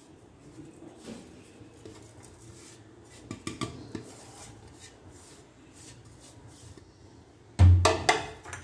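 Quiet scraping and a few light clicks as spices are tipped from a plastic tray into a steel mixing bowl of minced meat, then a loud knock and clatter of kitchenware near the end.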